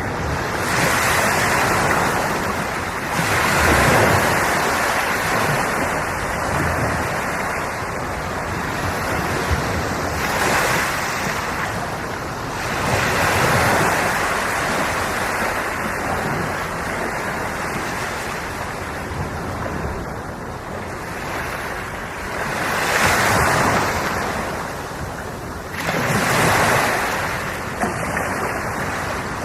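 Ocean waves on an Okinawan shore, breaking and washing in a steady roar that surges every few seconds.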